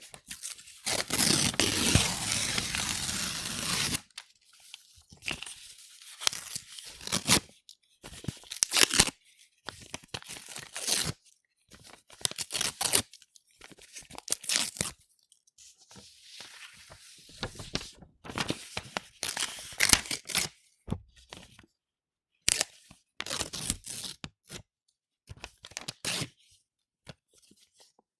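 A4 sheets of paper being torn by hand: one long tear near the start, then a string of short separate rips with brief pauses between them.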